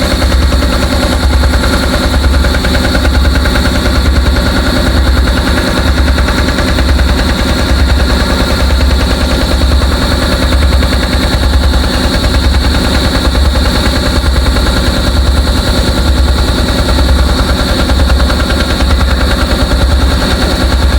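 Vibratory pile hammer running with a fast, steady rattle, pulling a steel bore casing out of the ground.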